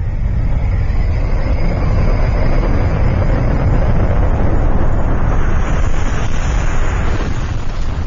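Jet aircraft in flight: a steady, deep rumbling engine noise with a hiss on top that grows brighter about five to seven seconds in, then eases.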